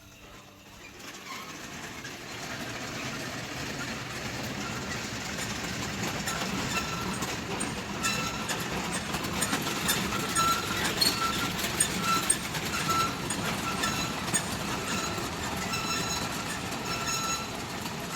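A row of metal prayer wheels being turned, rumbling and clattering on their spindles, with short high squeaks repeating throughout.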